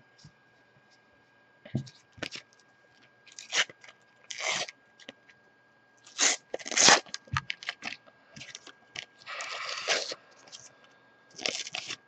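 A Panini FIFA 365 foil sticker packet is torn open by hand. It makes a string of short crinkling, tearing rustles, the loudest about halfway through and a longer rip around ten seconds in.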